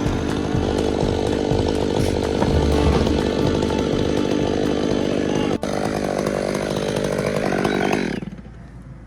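Chainsaw running at high speed, cutting timber, then cutting off abruptly about eight seconds in.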